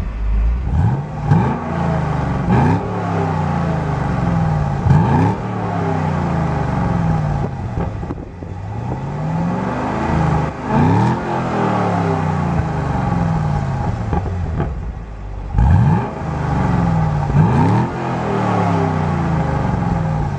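Chevrolet Camaro SS's 6.2-litre LS3 V8 revved in place through its dual exhaust, in about seven short blips, each rising sharply and falling back toward idle.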